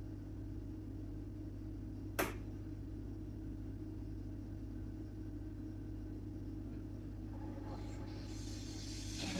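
Philips 2300 automatic coffee machine starting its cappuccino cycle: a steady low hum, a single sharp click about two seconds in, then the machine's running noise building up near the end.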